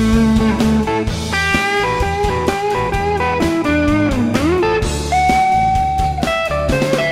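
Reverend Charger 290 electric guitar with P90-style pickups, through a Fender Tone Master Deluxe Reverb amp, playing a blues lead over a backing track with drums and bass. One note swoops down and back up about four seconds in, and another is held from about five to six seconds.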